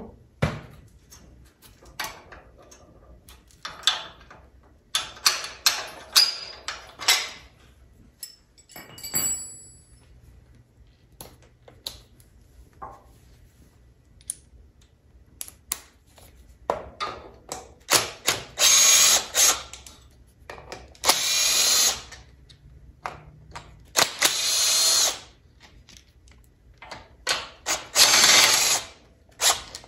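Cordless impact wrench hammering in four bursts of about a second each, loosening the rear differential bolts on a Honda Rubicon ATV, after a stretch of scattered clicks and clinks from the socket and tools.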